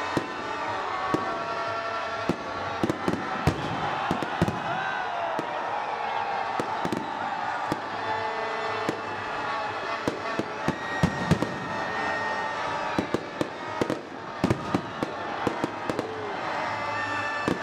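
Fireworks going off: a long irregular string of sharp bangs and crackling pops over a steady background din, coming thicker in the last few seconds.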